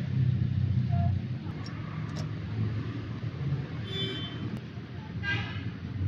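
Diesel engine idling steadily with a low, even rumble.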